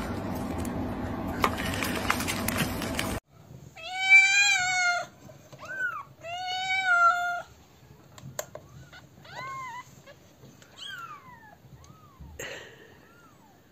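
A cat meowing: two long, loud meows, then several shorter, fainter mews that fall in pitch. Before them, a steady noise cuts off suddenly about three seconds in.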